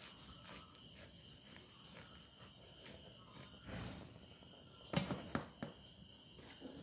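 Faint steady chirring of crickets, with soft scraping as a knife saws through a stacked burger, and a short clatter of knife against the steel plate about five seconds in.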